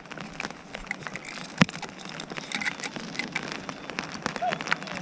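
Rain falling on an inflatable boat and the lake surface: a dense, uneven run of small raindrop ticks, with one sharper tap about one and a half seconds in.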